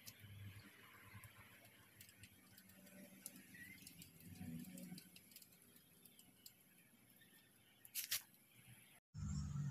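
Faint handling noises: light rubbing and small clicks as a small engine breather filter and its metal hose clamp are pushed and worked into place by hand, with a sharper double click near the end.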